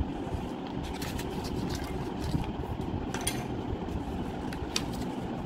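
Sheet of paper being folded and creased by hand, with a few faint rustles and crinkles over a steady low background rumble.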